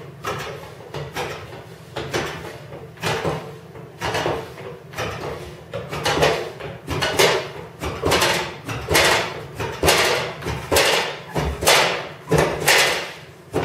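Hand flange-bending tool being worked stroke by stroke along the flange of an aluminium wing rib, bending it up to 90 degrees: a short, sharp metal knock with a little ring at each stroke, repeated about every three-quarters of a second.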